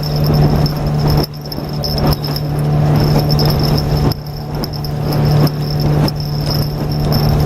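Outboard motor of a Solar 450 Jet PVC inflatable boat running steadily under way, a constant engine tone with a high whine, its level dipping briefly a few times.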